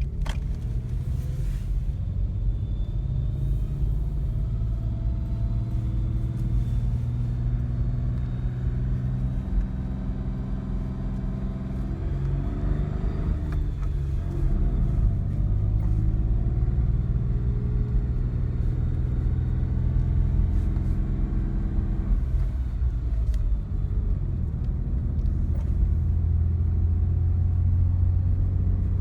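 2006 Nissan Xterra's 4.0-litre V6 running, with the noise the owner calls wheezing. The engine note shifts in pitch about halfway through and again later.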